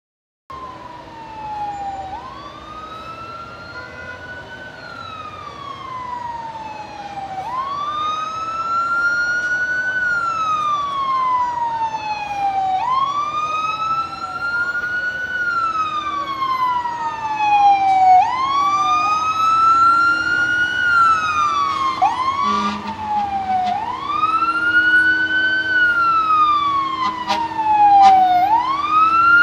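Fire engine siren wailing, rising and falling slowly about every five seconds and growing louder as it approaches. A second siren sweep overlaps briefly about two-thirds of the way through.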